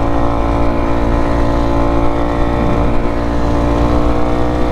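Fuel-injected four-stroke single-cylinder engine of a 2020 Kawasaki KX250F dirt bike, running under way and held at a nearly steady pitch, with a low rumble underneath.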